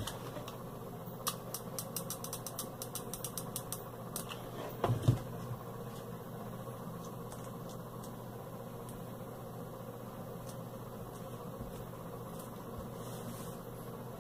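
Steady low background hum, with a run of light clicks and taps in the first few seconds and a single knock about five seconds in, from hands working ribbon on a tabletop.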